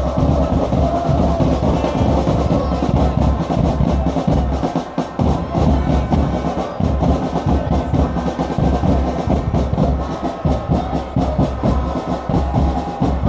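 Supporters' drums beating in a fast, steady rhythm over a loud stadium crowd.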